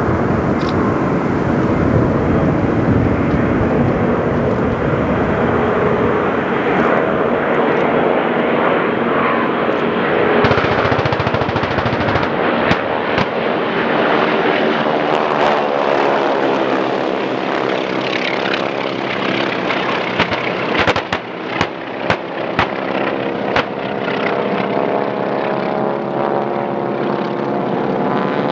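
Piston-engine propeller warplanes flying overhead in a mock air attack: a continuous engine drone whose pitch bends as the planes pass. A few sharp clicks or pops stand out over the engines about three quarters of the way through.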